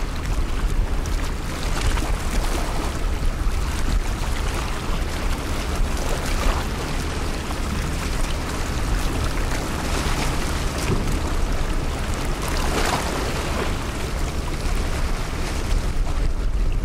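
Strong wind buffeting the microphone: a steady, rumbling rush that swells in a couple of gusts.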